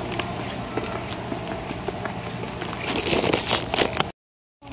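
Footsteps on a concrete warehouse floor over the steady hum of refrigerated display cases, with a louder rustling stretch about three seconds in. The sound cuts out abruptly just before the end.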